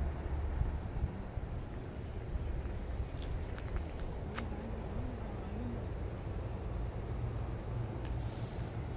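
Crickets chirring steadily at night in a thin, high, unbroken tone, over a steady low rumble. A few faint clicks come in the middle.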